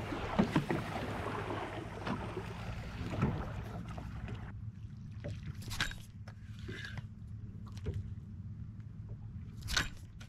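Boat motor running with a steady low hum under the rush of water along the hull. About four and a half seconds in the rushing drops away as the boat slows, leaving the motor's hum and a few sharp clicks.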